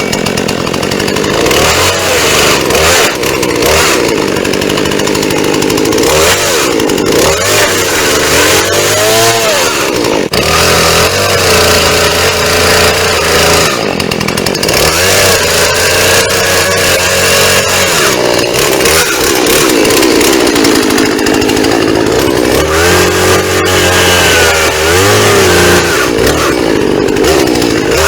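Chainsaw running loud and continuously, its engine pitch sagging and rising again several times.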